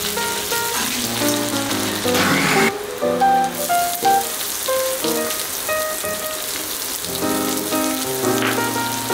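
Chopped garlic and chillies sizzling in hot mustard oil in a cast iron kadai, a steady frying hiss, under background music with short melodic notes.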